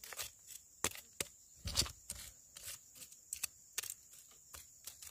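A machete blade scraping and chopping through clumpy soil, making irregular scrapes and clicks with a duller knock about two seconds in, as soil is dragged back over buried fertilizer.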